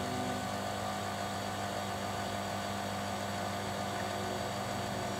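Small electric motor of a rod-wrapping machine running steadily as it turns a rod blank, giving an even, low hum.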